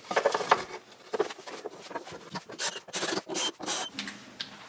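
Irregular clicks, taps and scrapes of a plywood cover panel being handled and fitted onto a wooden blower housing on a workbench.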